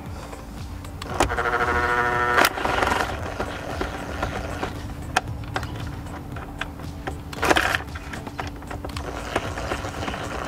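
A T20 Torx driver unscrewing a small screw from dashboard trim: scattered clicks and scrapes of the tool turning. There is a second of rapid buzzing clicks about a second in, and a short burst near the end.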